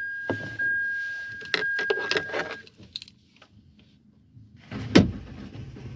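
Ignition keys jangling while a steady electronic beep sounds for the first couple of seconds. Then, about five seconds in, a sharp clunk and the Hyundai Santro's starter cranks the engine, which does not catch: the car has a hard-starting problem.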